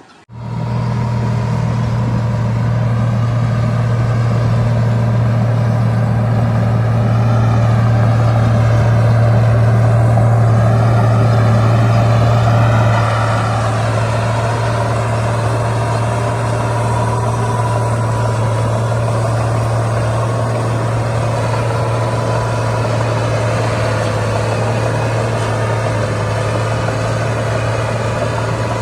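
Heavy diesel engine of earthmoving machinery running loudly and steadily, with a slight swell in its note that eases off about halfway through.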